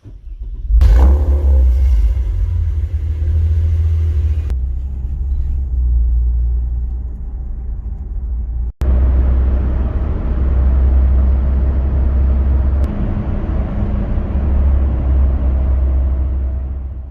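Steady, loud low rumble of a vehicle on the move, in two stretches split by a sudden cut about halfway through, fading out at the end.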